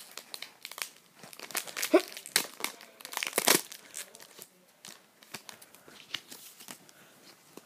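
Foil Pokémon trading card game booster pack being crinkled and torn open by hand: a run of irregular sharp crackles, loudest about two and three and a half seconds in.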